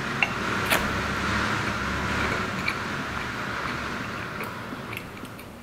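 A metal fork and spoon clink against a ceramic plate a few times, the sharpest about three-quarters of a second in, over steady background noise.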